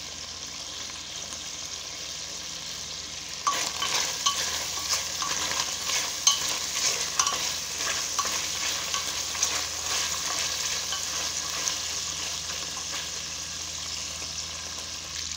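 Chicken pieces frying in hot oil in a pot, with a steady sizzle: the meat's water has cooked off and it is now browning. About three and a half seconds in, the sizzle turns louder and crackly, with clicks and scrapes, as the chicken is stirred and turned with a wooden spatula. It settles a little near the end.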